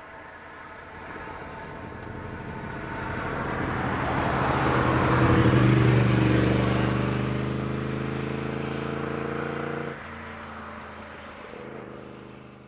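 A car and a motorcycle driving past: engine and road noise build as they approach, are loudest about halfway through, then the engine tone holds steady and fades as they move away. The level drops suddenly about ten seconds in.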